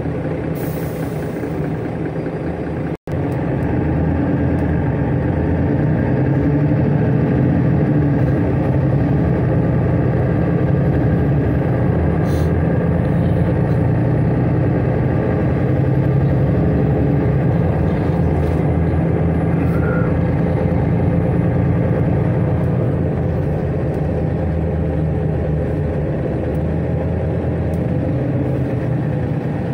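Mercedes-Benz Citaro facelift city bus driving, heard from inside the passenger cabin: a steady engine hum with road noise. The sound drops out for a moment about three seconds in, then comes back a little louder.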